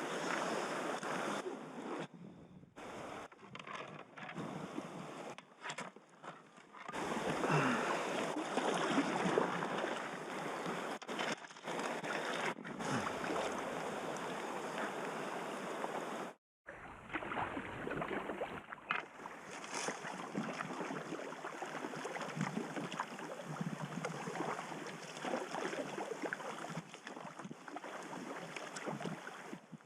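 River water rushing and splashing around a packraft as it floats downstream. The sound drops out and resumes several times.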